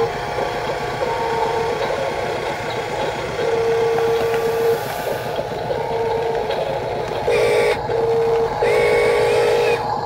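Huina RC dump truck raising its tipper bed: a steady electric whir with a high tone that comes and goes. In the last few seconds it changes to a fast pulsing beep.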